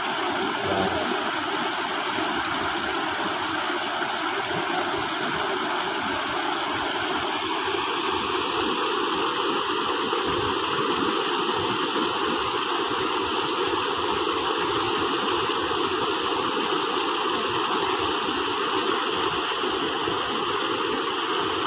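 Water rushing steadily over a low concrete weir.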